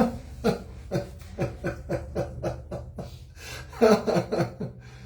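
A person laughing in a run of short breathy chuckles, about three to four a second, with a louder burst of laughter about four seconds in.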